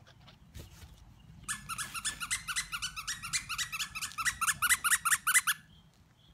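Squeaky dog toy squeezed over and over, a fast run of high squeaks at about five a second that gets louder and then stops suddenly.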